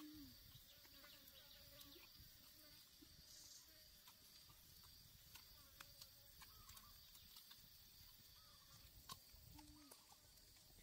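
Near silence: faint forest ambience with a steady, high insect drone, a few soft clicks and one or two brief low murmurs.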